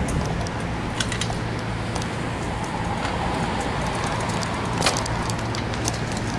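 A bicycle being wheeled along, with scattered clicks and rattles, the sharpest about a second in and again near the five-second mark, over a steady low hum and hiss.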